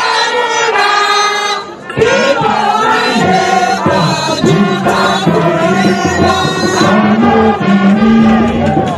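A woman singing into a microphone with a crowd singing along. A steady low accompaniment note comes in about three seconds in.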